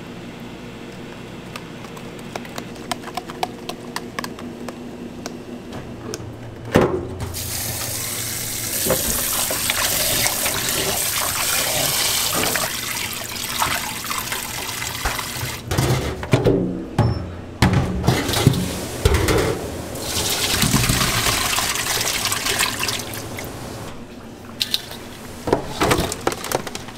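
A whisk ticking lightly against a plastic tub of batter, then a kitchen tap running hard into a plastic tub of raw shrimp as gloved hands rub and rinse them, the water splashing. The tap stops briefly about halfway with some knocking, runs again, and near the end the wet shrimp clatter as they are tipped from a steel colander into a tub.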